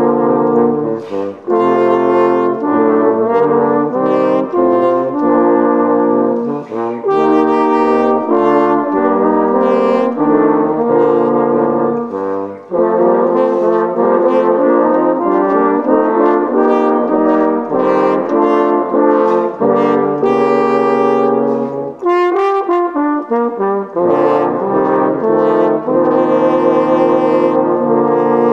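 A French horn quartet playing a slow piece in chords, several horns holding notes together and moving from chord to chord. The lowest part drops out for a moment about two-thirds of the way through.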